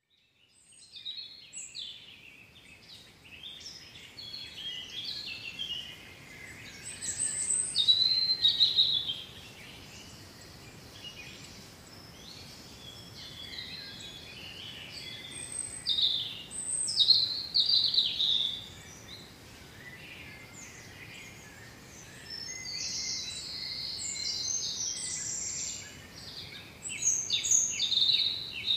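Songbirds chirping and singing: many short, high calls and trills overlapping, swelling into louder spells and dropping back several times.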